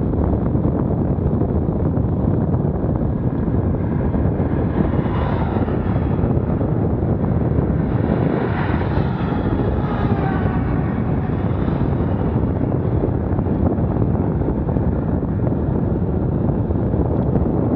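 Steady rushing wind on the microphone of a moving recorder. A vehicle passes in the middle, its whine rising and then falling away.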